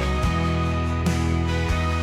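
Background music: an instrumental passage of a pop ballad, with guitar and steady bass tones.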